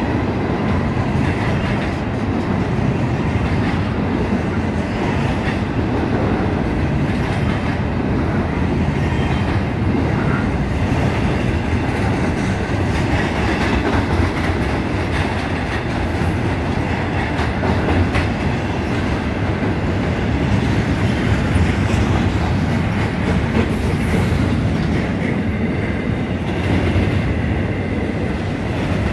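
Freight train cars rolling steadily past: a dense, even rumble of steel wheels on rail, with clickety-clack over the rail joints and faint wheel squeal.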